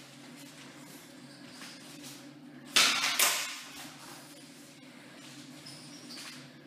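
Two training cutlasses clashing twice, about half a second apart, each strike ringing briefly as it fades.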